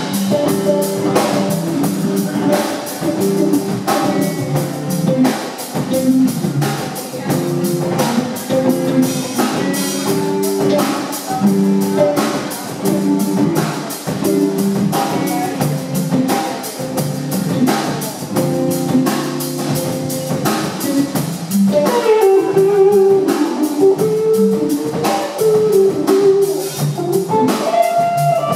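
Live instrumental band jam on electric bass, drum kit and electric guitar, the drums keeping a steady beat under the bass and guitar. About 22 seconds in, a lead guitar line with bending notes comes to the fore.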